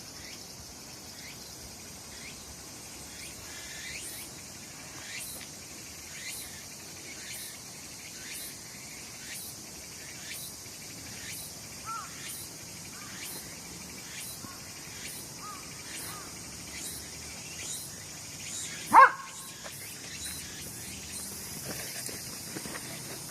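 Cicadas singing in chorus: a steady high-pitched buzz, with a repeating sweeping call about once a second. About two-thirds of the way through, a single short, loud bark stands out above them.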